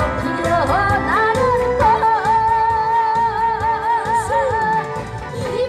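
A woman singing over amplified backing music with a steady beat, holding one long wavering note through the middle.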